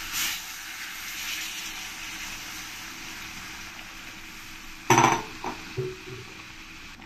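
Taro pieces and spice paste sizzling in oil in a pan, a steady hiss, with a brief swell of hissing at the start. About five seconds in comes a ringing metal clank of a utensil against the pan, followed by a few lighter knocks.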